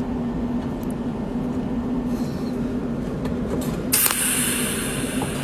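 Cold welding machine humming steadily, then about four seconds in its arc fires with a loud hissing crackle that lasts about a second and a half, melting filler wire on a titanium-alloy tube.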